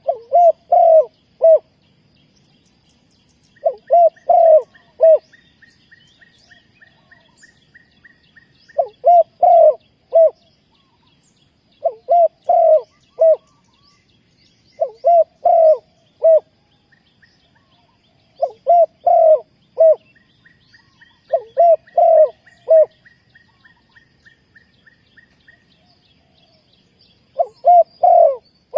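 Spotted dove cooing: repeated phrases of three or four low coos every few seconds, the call used to lure doves to a trap. Two runs of quick, faint, high chirps from another bird sound behind it.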